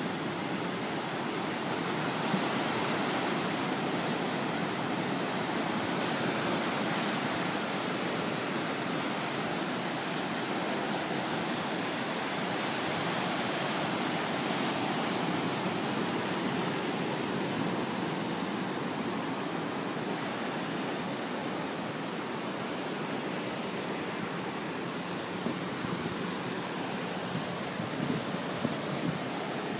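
Ocean surf washing over the sand: a steady rushing hiss of waves, with a few faint knocks near the end.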